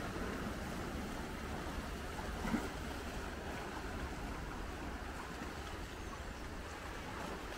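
Small waves washing and lapping over a flat sandstone rock shelf at the water's edge: a steady wash of water with a low rumble underneath. One short, louder sound comes about two and a half seconds in.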